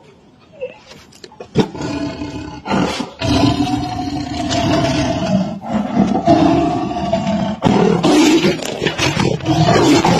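Tiger roaring. After a quiet start it begins about a second and a half in, breaks off briefly, then goes on in a long, almost unbroken run of roars.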